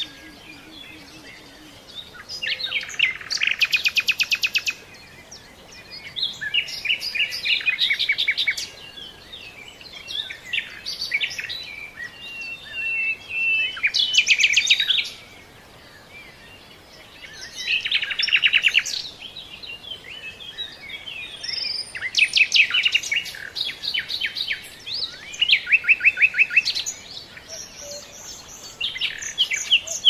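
Songbirds singing: bright phrases of rapid repeated notes and trills, each a second or two long, coming every few seconds with short pauses between them.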